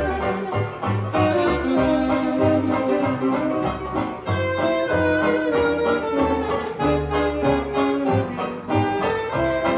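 Small hot jazz band playing 1920s-style jazz: horns carry the melody over banjo and a steady bass line of about two notes a second.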